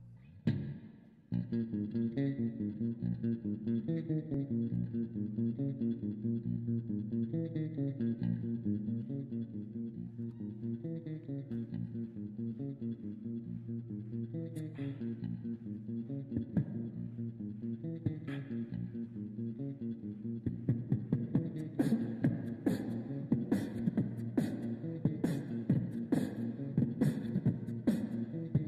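Background music with a steady beat and a repeating bass line. Sharper percussion comes in about three quarters of the way through.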